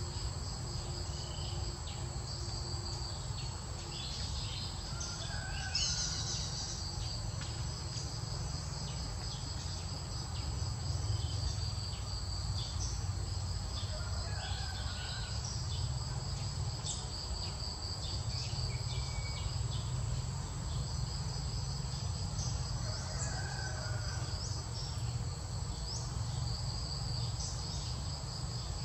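Insects chirring steadily in a fast, pulsing high trill, over a low steady rumble, with a few faint short chirps here and there.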